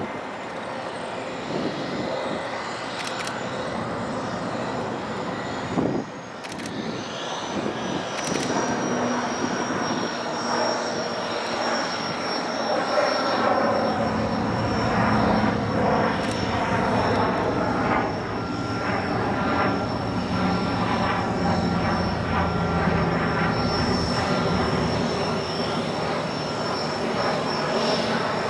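De Havilland Canada Otter floatplane taxiing on the water, its single engine and propeller running steadily with a high whine over the drone. It grows louder from about eight seconds in as the plane comes closer.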